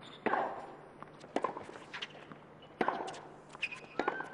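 Tennis rally on a hard court: sharp pops of racket strings striking the ball and ball bounces, about four strong hits a little over a second apart. A short rising shoe squeak comes near the end.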